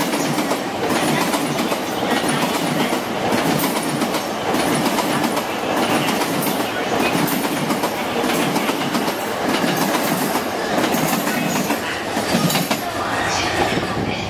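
JR Yamanote Line electric commuter train passing at speed: a continuous rumble and hiss with a rhythmic clatter of wheels over rail joints.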